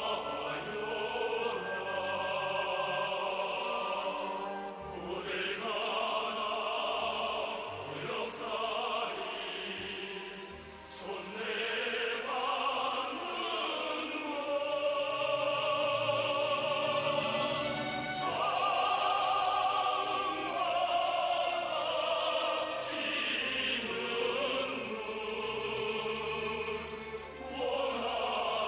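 Operatic singing with orchestral accompaniment: long held notes sung with vibrato, in phrases that break off every few seconds.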